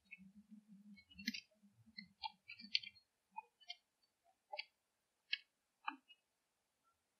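Sharp, irregular clicks, about seven of them spread over five seconds, over low, broken crackling during the first three seconds. The recording has been heavily noise-reduced.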